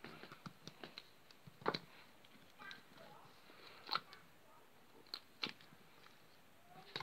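Purple slime being poked and pressed by fingers, giving a scatter of small sticky clicks and pops, the loudest about two seconds in and again about four seconds in.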